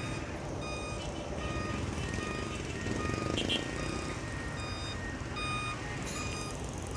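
Reversing alarms of construction vehicles beeping in a steady repeated pattern, two alarms at different pitches overlapping, over the low rumble of idling diesel engines.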